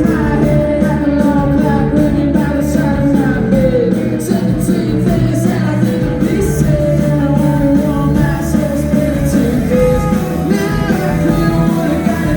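Live rock band playing, with a singer's voice over amplified instruments and drums.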